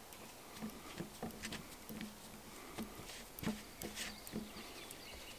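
Hands mixing and pressing flour dough in a carved wooden bowl: faint, irregular soft taps and clicks as the fingers work the dough against the bowl.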